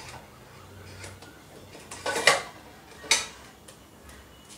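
A few clinks and knocks of a steel mixer jar against a non-stick kadai as thick ground coconut masala is emptied into it: a small cluster about two seconds in, another knock about a second later, and a few light ticks.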